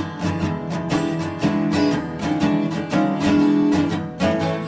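Background music of a strummed acoustic guitar, chords struck in a steady rhythm.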